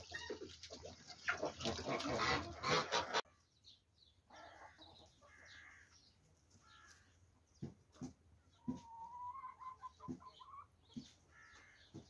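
Poultry flock, chickens among them, clucking and calling, loud and busy, until it cuts off abruptly about three seconds in. After that come faint scattered bird calls, one of them a long steady note, and a few soft knocks.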